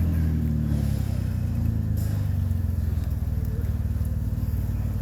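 A vehicle's engine running low and steady, its revs easing down over the first second and then settling into an even, rapidly pulsing idle.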